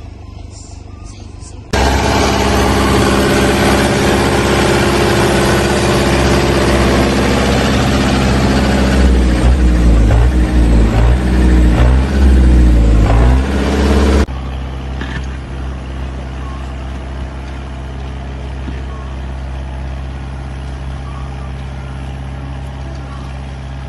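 Farm tractor engine running under load while pulling a disc plough through the soil. Its note rises and falls between about nine and fourteen seconds in. The sound jumps suddenly louder about two seconds in and drops abruptly to a quieter, steady engine running about fourteen seconds in.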